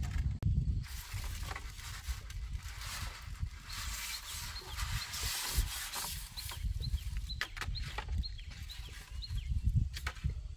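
Dry bamboo leaves and twigs rustling and crackling as they are pulled by hand from a stack of dried bamboo poles, with scattered light knocks. Short high chirps come through in the second half.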